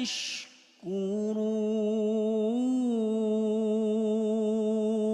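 Male Quran reciter's voice in melodic tajwid recitation: a quick breath in, then one long held note drawing out the verse's final word 'tashkurun', steady in pitch apart from a small rise and fall partway through.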